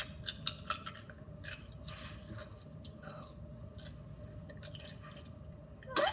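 A person chewing ice, with a run of sharp crunches and crackles that come thickest in the first couple of seconds.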